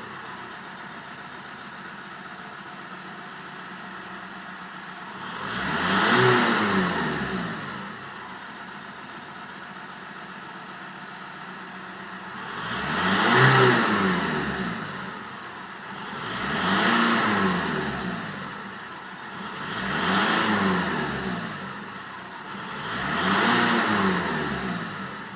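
Volkswagen Golf's 1.9 TDI diesel engine (AJM) idling and being revved five times. Each rev rises and falls back to idle over two to three seconds. The engine has a misfire.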